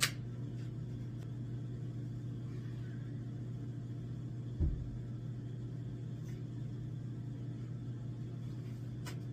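A steady low hum, with one dull thump about halfway through.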